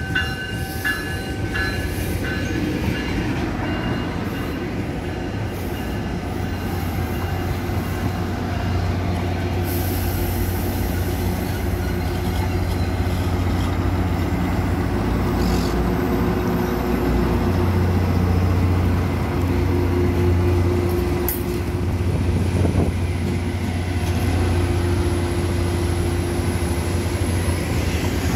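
Tri-Rail commuter train rolling slowly past: a steady low diesel drone and wheels rumbling on the rails, with a thin high-pitched wheel squeal that sets in about a third of the way through and rises slightly.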